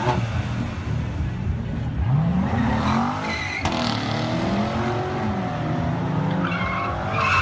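Chevrolet Corvette C7's V8 revving, its pitch climbing about two seconds in and then rising and falling, while its rear tyres break loose and squeal as it slides through a turn, with the squeal strongest near the end.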